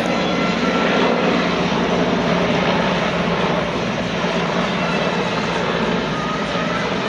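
Aircraft engine noise from a plane passing low overhead from a nearby airstrip, steady and loud.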